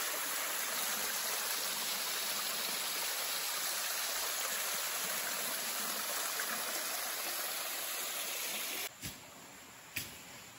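Small stream splashing steadily down over a mossy stone ledge. The rushing drops away sharply about nine seconds in, and a couple of faint clicks follow.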